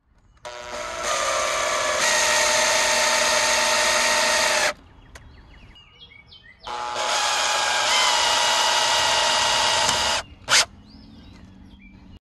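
Power drill driving screws through the trommel's steel wire screen into a chunk of tire. It makes two long, steady runs of about four and three and a half seconds, each building up as it starts, with a short click near the end.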